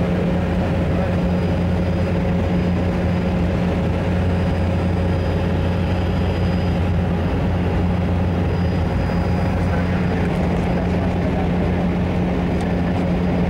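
Small propeller plane's engine and propeller droning steadily, heard from inside the cabin, with a strong deep hum that does not change.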